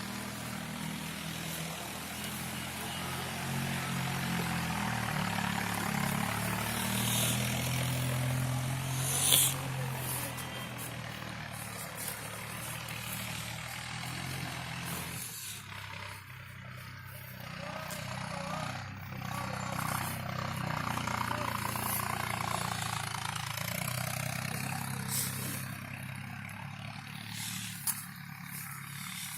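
An engine running steadily, with a sharp knock about nine seconds in; the engine sound drops away about halfway through.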